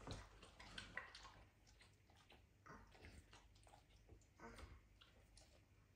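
Near silence with faint, scattered soft clicks and mouth sounds: an Alaskan Malamute chewing bits of food taken from a baby's high-chair tray.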